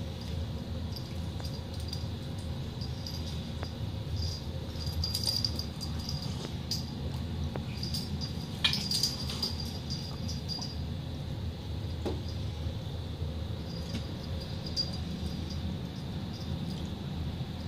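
A cricket chirping in short high bursts at irregular intervals over a steady low hum, with one sharp scrape about halfway through.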